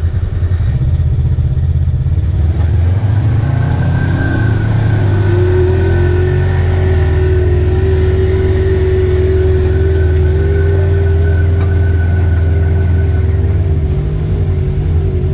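Polaris RZR side-by-side engine revving under load, the revs rising a few seconds in and then held steady, with a thin whine over the engine note for most of the run before easing off near the end.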